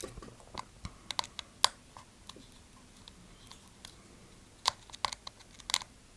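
Small sharp clicks and taps of a tiny screwdriver and little screws against the iPhone 5s's metal frame and bracket as the display screws are driven back in, coming in a cluster about a second in and another near the end.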